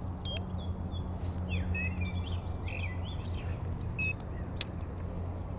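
Small birds chirping, many short quick calls over a steady low hum, with one sharp click about four and a half seconds in.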